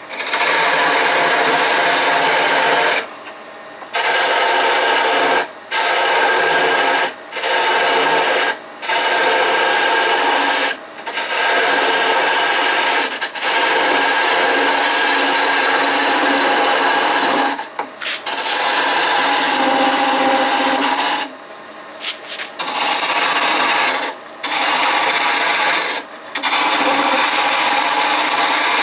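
Turning tool cutting a spinning walnut handle blank on a wood lathe, a loud steady shaving and scraping with the motor's hum underneath. The cut stops for a moment about ten times as the tool is lifted off and moved, then bites again.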